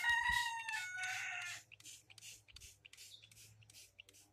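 A rooster crowing once: one long call that drops in pitch in its second half, over in about a second and a half. After it comes a quick run of short hisses, about four or five a second, from a hand-pumped spray bottle.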